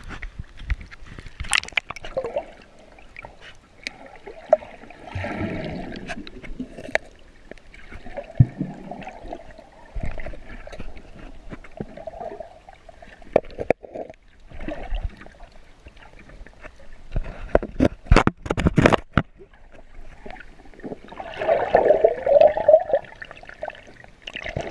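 Water sloshing and gurgling around a camera bobbing at the sea surface and then dipped underwater, in irregular churning bursts with scattered sharp clicks and knocks.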